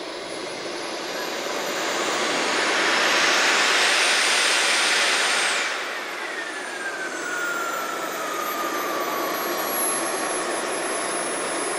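Electric ducted fan of an RC jet, a JP 90 mm metal fan, whining and rushing as the model flies a pass. It swells to its loudest a few seconds in, then drops away sharply, and its whine falls steadily in pitch as the jet moves off.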